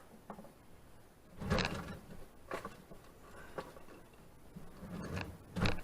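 A handful of separate knocks and clunks, the loudest about one and a half seconds in, as a cabinet panel and its mounting bracket are handled and worked loose.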